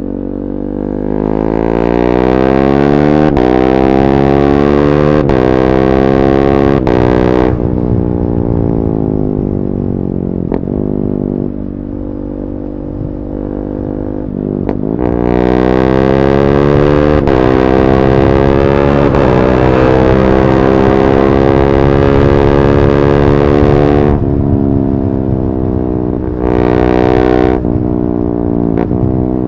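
KTM 390 Duke's single-cylinder engine through an Akrapovic slip-on exhaust with the catalytic converter removed. It accelerates hard twice, rising through several gears with a brief drop in pitch at each quickshifted upshift, and the revs fall away between and after the runs. There is a short blip of revs near the end.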